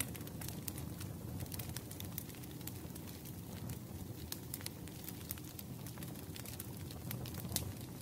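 Wood fire crackling: irregular sharp pops and snaps over a low steady rumble of burning logs.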